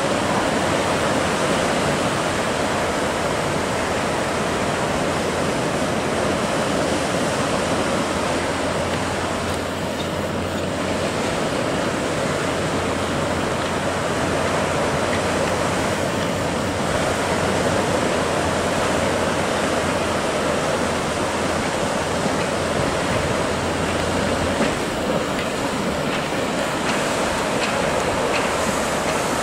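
Ocean swell and surf rushing and breaking steadily. A low, steady hum runs under it from about a third of the way in until near the end.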